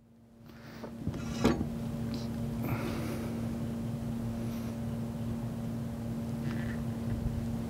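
A steady low hum with a rumble beneath it, and a single light knock about one and a half seconds in as the bowling ball is turned in the cradle of the balance scale.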